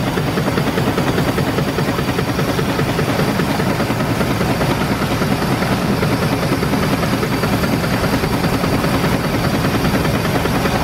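Steam launch under way, its engine running with a steady, rapid, even beat.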